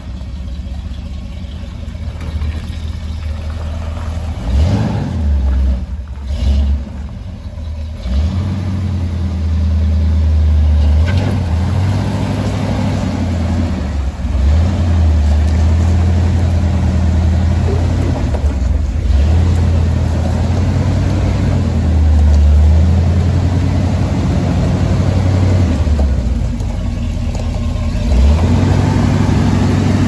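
1970s Ford F-series pickup's engine running as the truck drives and pulls in, with uneven revving surges about four to seven seconds in, then a steady low rumble.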